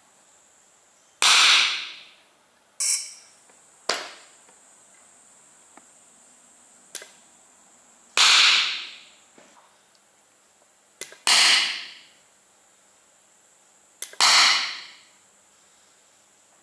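Four loud bangs of HHO (oxyhydrogen) gas igniting in a homemade pulse detonation engine tube, each dying away over about a second. Between them come shorter, quieter sharp clicks, two of them just before a bang. The spark is fired by hand right after each fuel solenoid pulse.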